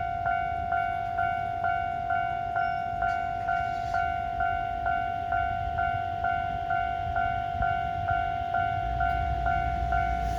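Railway level-crossing warning bell ringing with an even ding about twice a second, signalling that a train is due. A low rumble, typical of an approaching train, comes in near the end.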